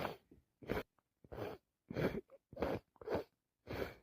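A person with a cold taking short, noisy breaths through a stuffy nose and mouth, about one every half second.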